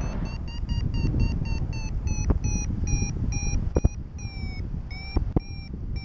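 Paraglider variometer beeping its climb tone. The beeps start quick and short, then slow down, lengthen and drop slightly in pitch: the climb rate in the thermal is easing off. Wind rumble on the microphone and a few sharp clicks run underneath.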